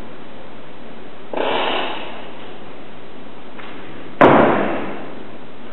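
A brief rustling scrape, then a loud, sharp thump a little after four seconds in, with a short ringing tail.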